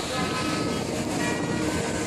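Steady rush of fast-flowing floodwater, an even loud noise with no breaks.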